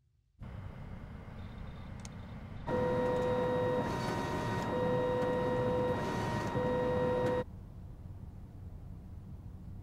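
Photo printer running and feeding out a print: a steady mechanical whir with a motor whine that sounds in three stretches of about a second each, then cuts off suddenly about seven seconds in, leaving a low hum.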